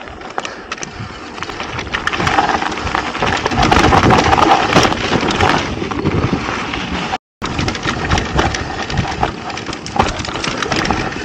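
Mountain bike riding fast down a rocky dirt singletrack: tyres rolling and crunching over dirt and stones, the bike clattering over bumps, with rushing wind noise on the microphone. The sound drops out completely for a split second a little past halfway.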